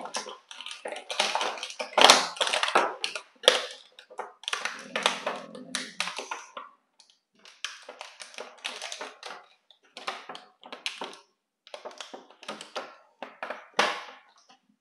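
Clear plastic blister packaging crinkling and crackling in irregular bursts as hands work an action figure and its accessories free of the tray, with short pauses between handlings.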